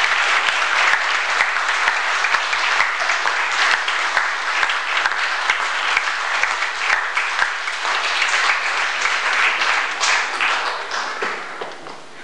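An audience applauding: dense, steady hand clapping that dies down over the last couple of seconds.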